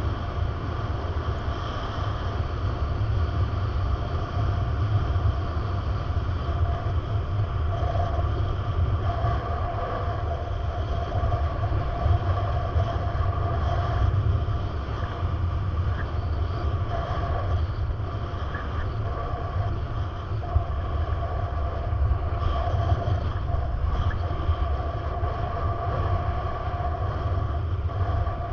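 Continuous low rumble of a moving vehicle, with steady whining tones held over it.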